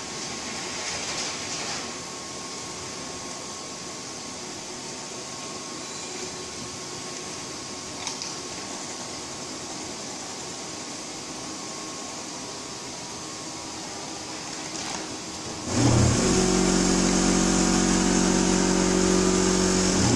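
Servo-driven auger of a semi-automatic powder auger filler running for about four seconds near the end, a loud steady motor whine over a low hum, dosing powder into a bag held under the spout. Before it, only a steady background hum with a couple of faint clicks.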